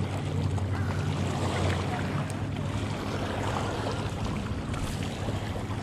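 Choppy lake water lapping against a rocky shore, with wind on the microphone and a steady low hum underneath.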